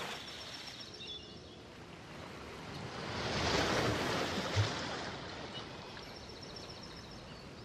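Relaxing instrumental background music with a wave-like rush of noise that swells to a peak about halfway through and then fades, under faint high tones.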